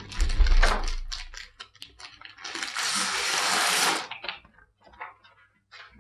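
Handling knocks on the phone microphone as it is moved, then a steady rustle of clear plastic wrapping and film pouches being pulled apart for about a second and a half, with a few small rustles and clicks after.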